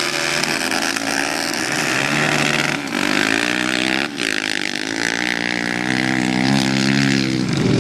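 Several modified racing quad engines at hard throttle as the quads launch from a standing start and race off, the engine notes shifting in pitch a couple of times along the way.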